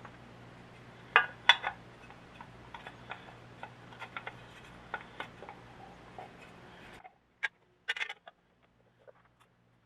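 Light clicks and clinks of small metal parts and hand tools being handled while working on an old air compressor, in irregular clusters, the loudest about a second and a half in.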